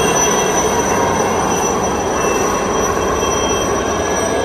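Formation of military helicopters flying overhead: a loud, steady rush of rotor and engine noise with a thin, steady high whine.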